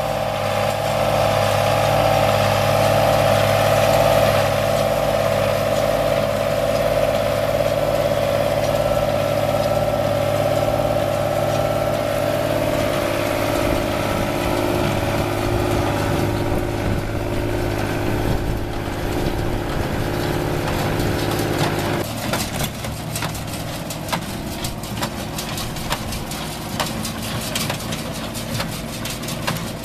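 Diesel engine of a Fiat 55-90 tractor running steadily while it drives a small square baler through hay. About two-thirds of the way through, the sound switches to a closer, quicker rattle and clatter of the baler working, with the engine underneath.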